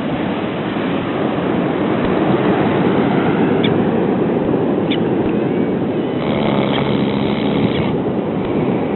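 A person snoring, with one long, buzzing snore about two-thirds of the way through, over a steady wash of ocean surf.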